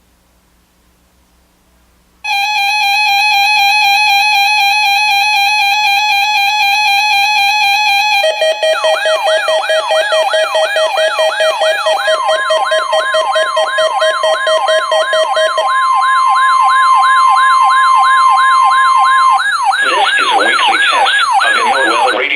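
Electronic alarm and siren tones. About two seconds in, a steady buzzy tone starts. A few seconds later it is joined by a second steady tone and a siren-like tone that sweeps upward about three times a second. Further steady tones are layered on until near the end.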